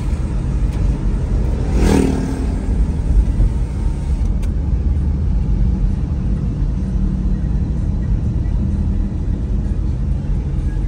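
Car driving slowly, heard from inside the cabin: a steady low rumble of engine and road noise, with a brief click about four seconds in.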